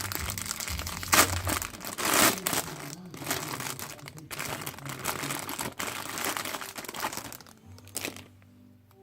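Parcel packaging crinkling and rustling as it is handled and pulled open by hand, with louder crackles about one and two seconds in; it dies away near the end.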